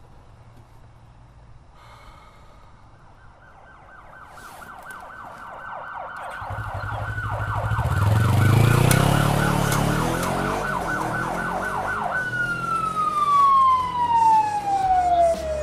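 Police car siren in a rapid warble, growing louder as the vehicle approaches. About three quarters of the way through it winds down, its pitch sliding steadily lower.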